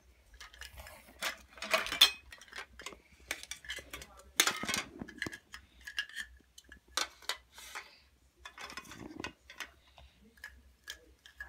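Toy kitchen cookware clattering as a child handles it: plastic pots, pans and dishes knocked and set down in a string of irregular clicks and clacks, the loudest about two seconds in.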